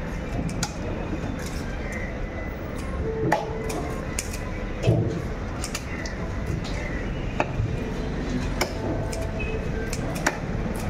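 Heavy knife chopping a sea bass into steaks on a wooden chopping block: irregular sharp knocks of the blade through the fish into the wood, the loudest about three and five seconds in, over a steady background noise.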